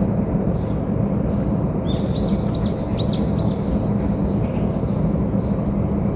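A small bird chirping: a quick run of four or five rising notes about two to three seconds in. Beneath it runs a steady low rumble, which is the loudest sound throughout.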